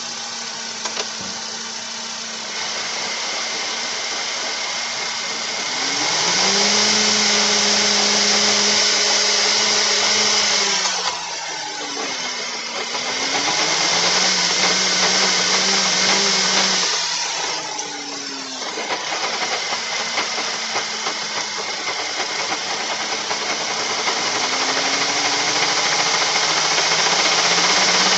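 Whine from a 2013 Volkswagen Beetle 2.5's front differential and transmission as the drivetrain runs, rising and falling in pitch several times as the speed goes up and down. The noise is the sign of a failing front differential.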